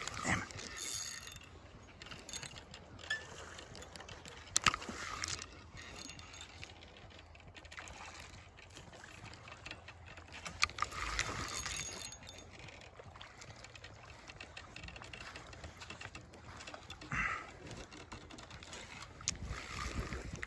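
Spinning reel's gears and drag ticking as a hooked salmon is played on the rod, with a few louder handling knocks.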